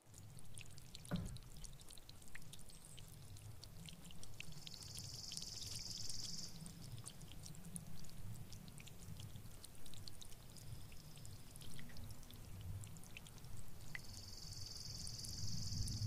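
Light rain dripping and pattering on garden leaves: scattered drips over a faint low rumbling background. Twice, about four seconds in and again near the end, a high, steady buzzing trill lasts about two seconds.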